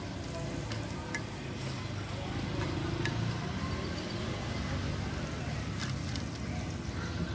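Hot kue laba-laba mold sizzling steadily as a brush spreads grease into its cups.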